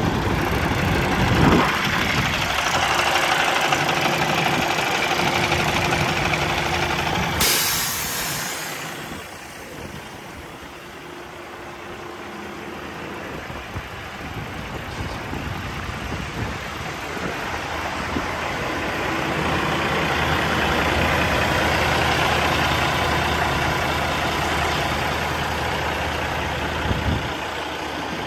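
Freightliner Cascadia 125 semi truck's diesel engine idling steadily. A brief hiss comes about seven seconds in, and the engine sound drops for a few seconds before growing louder again.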